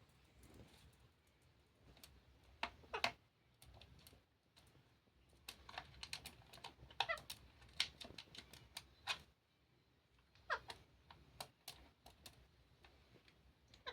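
Indian ringneck parrot giving short calls that fall in pitch, a few at a time, among scattered sharp clicks.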